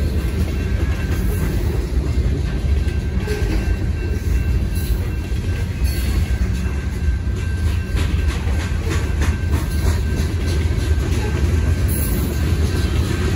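Freight cars of a BNSF manifest train rolling past a grade crossing: a steady, heavy rumble with repeated wheel clacks over the rail joints, thickest in the middle.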